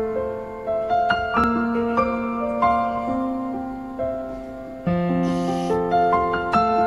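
Background piano music: a slow melody of single struck notes over held low notes, with a brief hiss about five seconds in.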